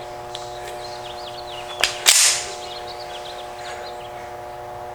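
A single shot from a Sig Sauer TTT 1911 pistol in .45 ACP, about two seconds in, with a short echo after it. A steady hum runs underneath.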